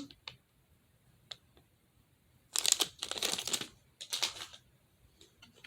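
A few light clicks, then two bursts of rustling and crinkling, one about a second long and a shorter one, from plastic fidget toys being handled.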